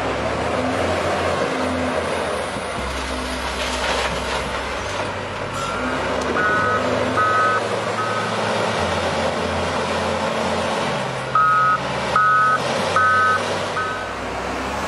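A heavy truck's engine running with a steady rumble while its reversing alarm beeps in two runs of about four short beeps each, a few seconds apart.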